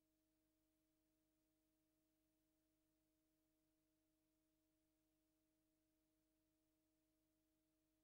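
Near silence: only a very faint, steady hum of a few unchanging tones under the noise floor.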